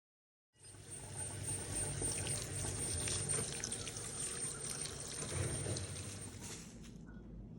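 Liquid being poured steadily for about six seconds, starting after a brief silent cut and tailing off near the end.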